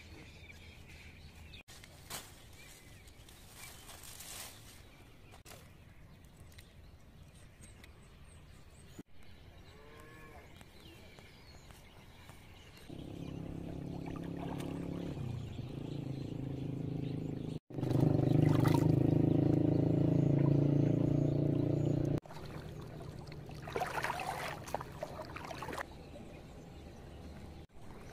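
Outdoor ambience, then a steady engine-like hum comes in about halfway. It gets louder after a few seconds and cuts off suddenly about six seconds before the end.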